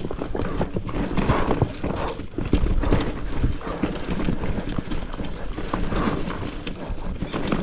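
Marin Rift Zone 3 full-suspension mountain bike clattering down a rock garden, its tyres and frame knocking and rattling over stones and roots in a dense, uneven run of knocks.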